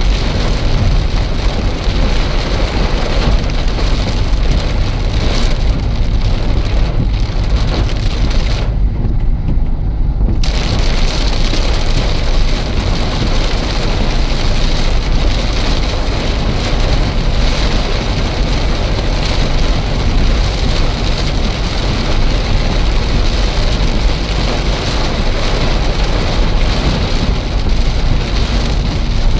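Steady rushing road and wind noise of a car on the move, heaviest in the low rumble; the high hiss drops away for about a second and a half around nine seconds in.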